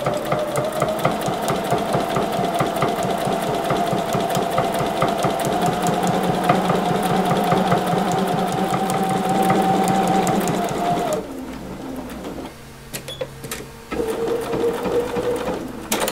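Sewing machine top-stitching at a steady speed, its motor whining under a rapid run of needle-stroke ticks. It stops about eleven seconds in, then runs again briefly and more slowly near the end.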